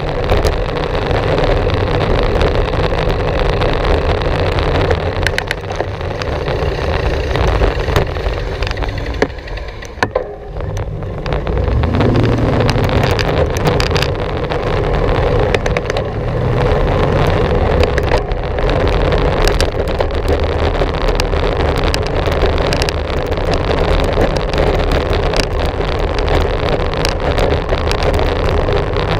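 Wind buffeting a GoPro Hero 4's microphone while riding a bicycle: a loud, steady rumbling rush, with a short lull about ten seconds in.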